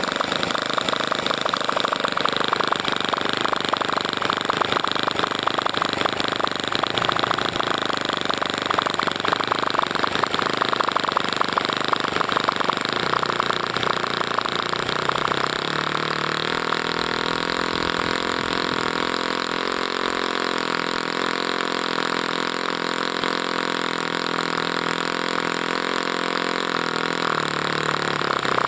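OS Surpass .52 four-stroke glow engine with a straight-pipe exhaust, running on a model airplane. It runs faster and rougher at first, then about halfway drops to a slower, steady, evenly pitched run.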